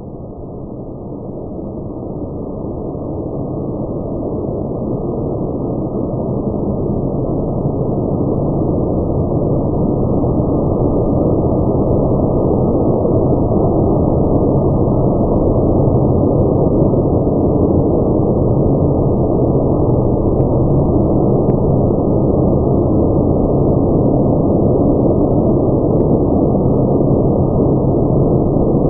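Steady rushing noise of a car wash, growing louder over roughly the first ten seconds and then holding steady.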